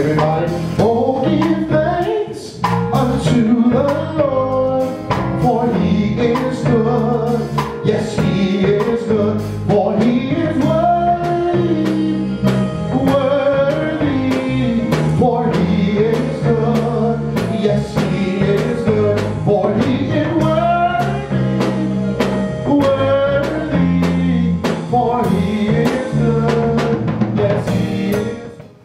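A man singing a gospel song into a microphone, backed by piano and a drum kit keeping a steady beat. The music stops just before the end.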